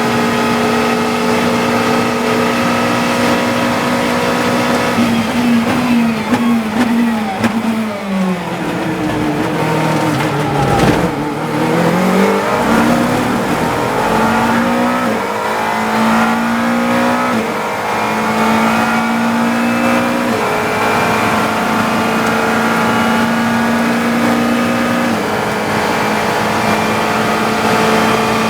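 GT3 race car engine at high revs, then braking hard with a run of quick downshifts that step the pitch down to its lowest near the middle. It then accelerates back up through the gears, with a couple of upshifts later on.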